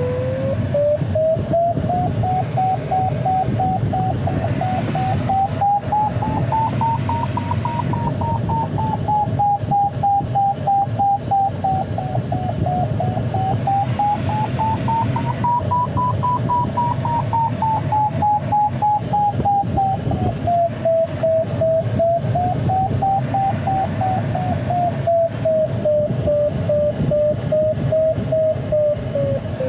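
A glider's audio variometer sounds a single continuous tone that wavers slowly up and down in pitch, rising and falling with the glider's climb and sink. Underneath it is the steady rush of airflow in the ASK 21 cockpit.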